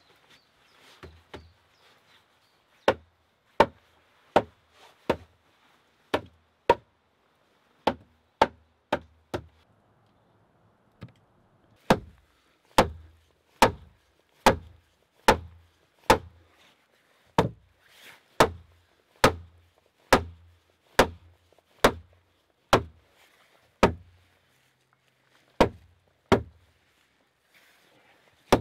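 Hand tool striking the wooden wall logs of a log cabin in a steady series of hard blows, about one a second, with a brief pause about ten seconds in.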